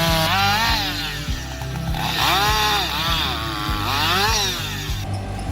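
Chainsaw running and cutting wood, its pitch rising and falling repeatedly as it bogs into the cut and revs free, over background music with a steady beat. It stops abruptly about five seconds in.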